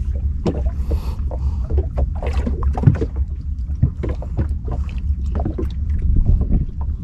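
Sounds aboard a small sampan at sea: a steady low rumble with many irregular small knocks and slaps.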